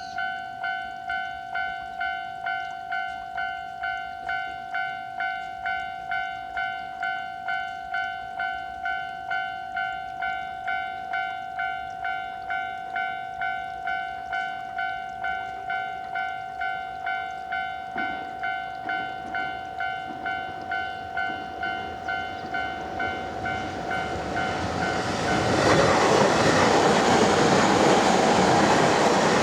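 Japanese level-crossing warning bell ringing its steady "kan-kan", about two strikes a second. About 25 seconds in, a train comes through the crossing and its loud running noise drowns the bell.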